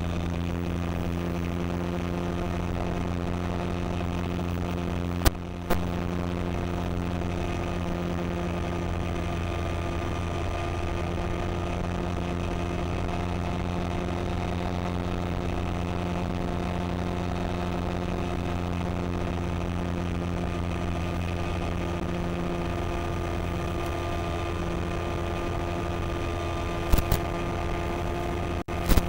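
Electric motor and propeller of a model Spitfire, heard on board in flight as a steady, even drone at constant throttle. Two short clicks come about five seconds in.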